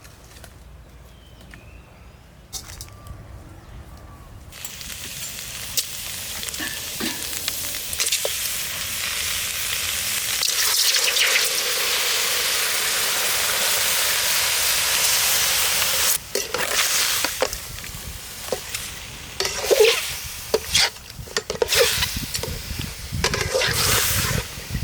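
Food sizzling in a hot pan: a steady frying hiss that swells over the first half. From about two-thirds of the way in, irregular knocks and scrapes are heard, as of stirring in the pan.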